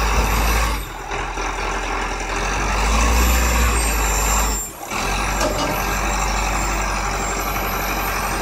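Wheel loader's diesel engine running steadily under load as it tows a disabled tractor on a tow bar. The sound dips briefly about halfway through.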